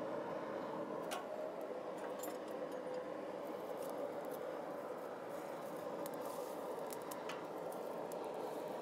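Blacksmith's coal forge fire under an air blast: a steady rushing of air through the fire, with a few scattered crackles and pops as sparks fly up.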